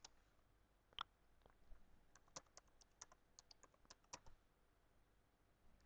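Faint keystrokes on a computer keyboard: a couple of single clicks, then a quick run of about a dozen keys over two seconds as a password is typed in.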